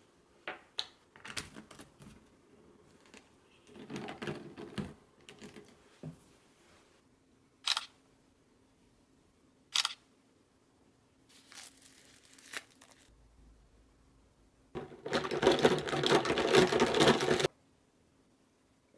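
Phone camera shutter sounding twice, about two seconds apart, among light knocks of handling at a table. Near the end comes a loud burst of noise lasting about three seconds.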